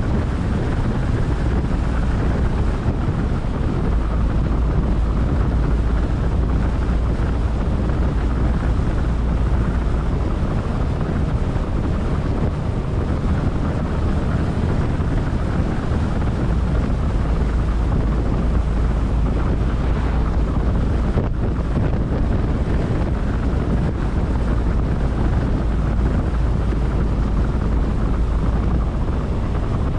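Wind buffeting the microphone: a steady, heavy low rumble whose deepest part swells and eases in long gusts.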